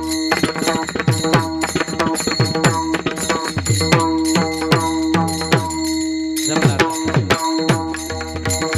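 Instrumental passage of devotional bhajan music: fast, rhythmic hand-drum strokes whose pitch slides downward, over a steady held note with high ringing cymbals.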